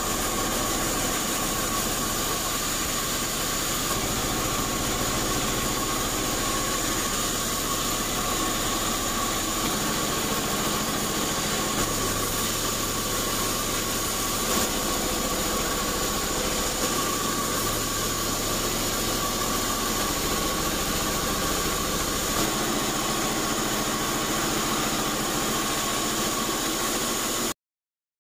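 Large vertical band sawmill running steadily, its motor and blade making an even machine noise with a steady high whine. The sound cuts off suddenly near the end.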